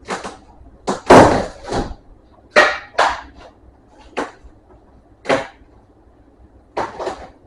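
Irregular hand scraping or rubbing strokes on a hard surface, about nine in all with pauses between them, the longest and loudest about a second in.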